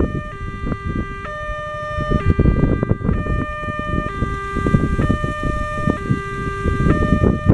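Railway level-crossing warning alarm sounding continuously: an electronic tone that alternates between two notes about once a second. A low rumbling noise runs beneath it.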